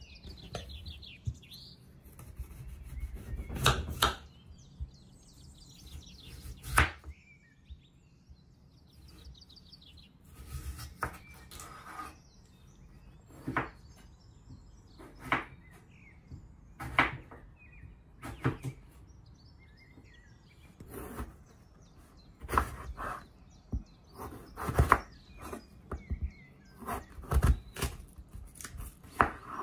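Chef's knife slicing raw potatoes on a wooden cutting board: a series of sharp, irregularly spaced knocks as the blade cuts through and meets the board.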